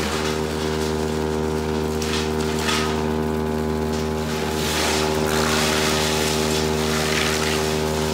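Sawmill machinery running: a steady mechanical drone throughout, with intermittent bursts of rushing noise over it that grow louder about five seconds in.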